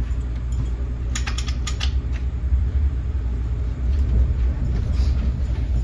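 Steady low rumble inside a moving NJ Transit Multilevel passenger coach. A quick cluster of sharp creaks and rattles from the car's interior comes about a second in.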